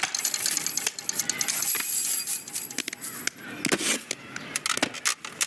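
A rapid, irregular run of light clicks and rattles from small hard objects knocking together, dense at first and thinning out toward the end.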